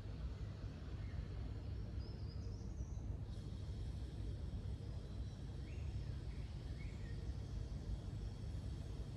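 Outdoor ambience: a steady low rumble with a few faint bird chirps, about two seconds in and again around six to seven seconds. A faint high hiss joins about three seconds in.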